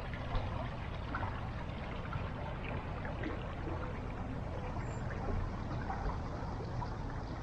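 Water pouring and trickling steadily, a continuous splashing rush with small droplet ticks through it.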